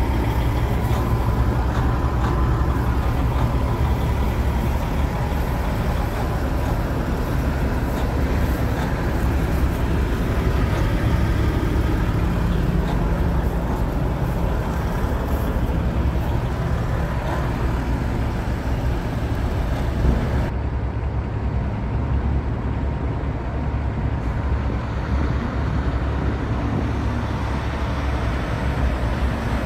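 Heavy diesel trucks running, a steady low engine sound mixed with road traffic noise. About two-thirds of the way through, the higher hiss drops away.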